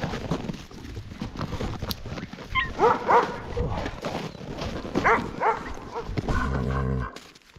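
Harnessed Alaskan husky sled dogs yelping and barking, excited before a run: short rising yips in pairs about three and five seconds in. A brief low buzzing sound comes just before the end.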